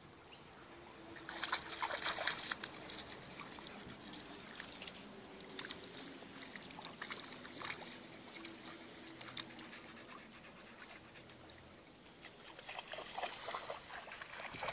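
A dog wading in shallow lake water, splashing and sloshing, with bursts of splashing about a second in and again near the end, and the dog panting.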